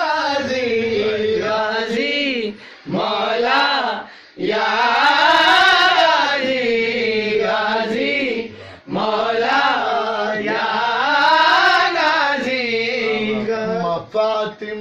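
A man chanting a devotional qasida in long, wavering melismatic phrases, stopping briefly for breath a few times.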